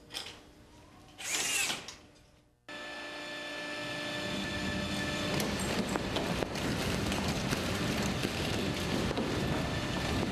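A seismic shake test starting abruptly about a quarter of the way in. A T-bar suspended ceiling and its light fixture rattle and clatter continuously under the simulated earthquake, slowly growing louder.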